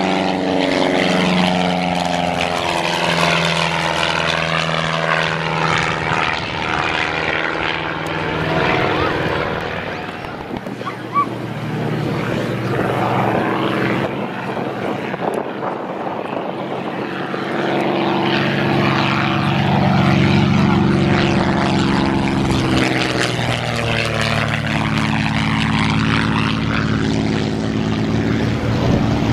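Light propeller airplane engine droning as the plane passes. Its pitch drops as it goes away and the sound thins out in the middle, then it grows louder again from a little past halfway as the plane comes round for another pass.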